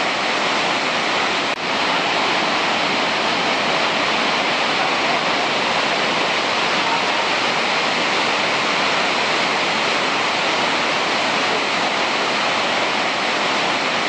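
Montmorency Falls, a very high, heavy waterfall, thundering steadily: a dense, unbroken rush of falling water with no let-up.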